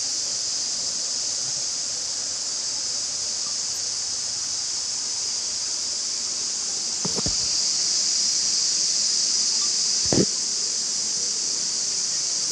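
Steady high-pitched drone of an insect chorus, with two short low sounds about 7 and 10 seconds in.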